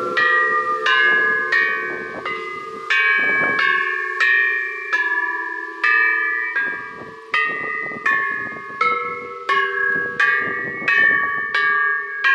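Several Thai temple bells of different pitches struck one after another, about one to two strikes a second, each ringing on into the next.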